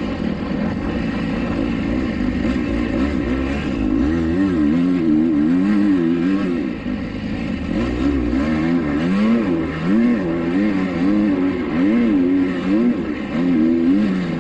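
2021 Kawasaki KX250X's single-cylinder four-stroke engine being ridden, revving up and down over and over, its pitch rising and falling about once a second.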